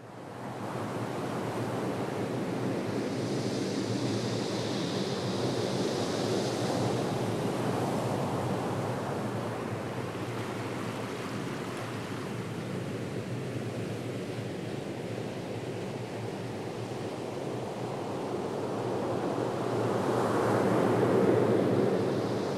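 Steady rushing noise of sea surf and wind. About three seconds in, a higher hiss joins for a few seconds, and the noise swells louder near the end.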